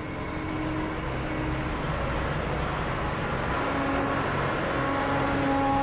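Diesel engine of an underground mining front loader running steadily. Its engine note shifts partway through, and it grows slightly louder.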